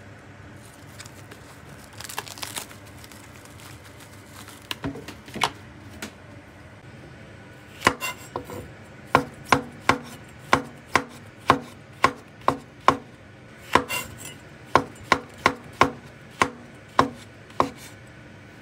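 Nakiri knife slicing fresh shiitake mushrooms on a wooden cutting board: after a few scattered handling noises, a steady run of sharp knife taps on the board, about two a second, through the second half.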